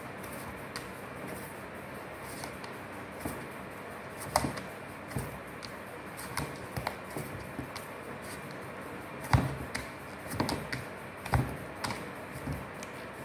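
Hands kneading soft dough in a bowl: irregular thumps and knocks as the dough is pressed and turned against the bowl, over a steady background hiss.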